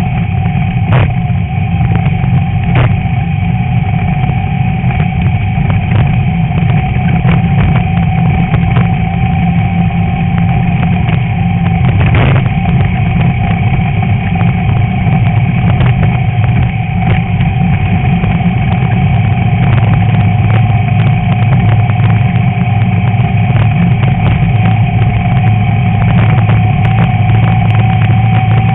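Class 11 VW Beetle's air-cooled flat-four engine running steadily under load while racing off-road, with scattered knocks and clatters from the car hitting bumps, one sharper knock about twelve seconds in.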